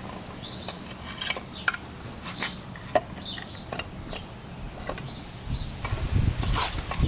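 Metal parts and tools clinking and knocking in a workshop, a series of separate sharp knocks, with small birds chirping in short repeated calls. Low rustling and rumbling comes in about five seconds in.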